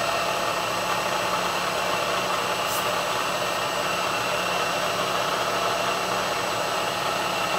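Milling machine spindle running steadily during a CNC spot-drilling cycle in aluminium plate: an even hum with a thin high whine, and one brief tick about three seconds in.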